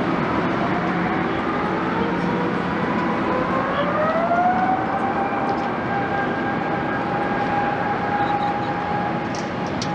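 Airbus A350-900's Rolls-Royce Trent XWB jet engines spooling up for takeoff, heard at a distance. Over a steady rush of engine noise, a whine rises in pitch about four seconds in, then levels off into a steady high tone.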